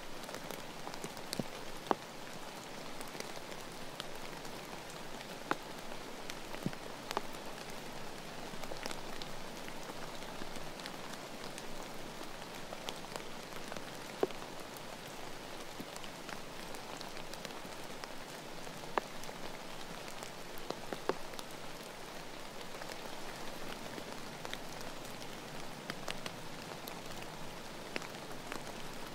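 Steady rain falling, an even hiss with scattered sharp drops and a few louder single drop hits now and then.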